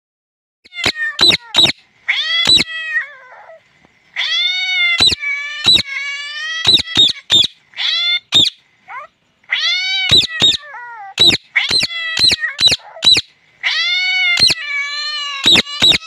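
Indian ringneck parakeet calling in bouts: drawn-out calls that rise and fall in pitch, broken by sharp clicks, with short pauses between bouts.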